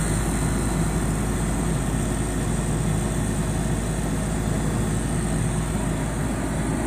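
Steady machine running noise with a low rumble and hum, unchanging throughout.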